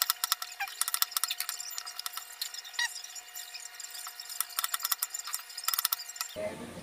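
Kitchen knife chopping ginger and red onion on a plastic cutting board: a run of sharp taps on the board, coming in quick clusters at the start and again near the end.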